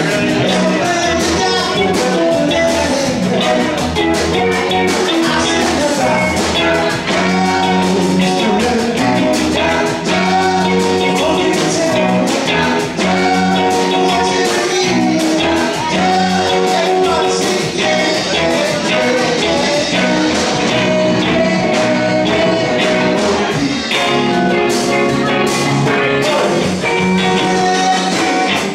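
Live rock band playing: electric guitars and drum kit, with a man singing lead at the microphone.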